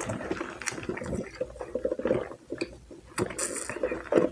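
Close mouth sounds of eating and drinking: wet chewing and lip smacks, then sipping a drink through a plastic straw from a large paper cup, with a short hissy slurp about three and a half seconds in.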